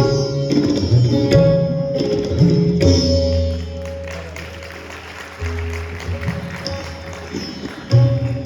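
Hindustani classical music: plucked sitar-type strings playing a melody over tabla accompaniment, with deep ringing bass-drum strokes under it. The playing thins to sustained string notes and long bass tones in the middle, then picks up again with sharper strokes near the end.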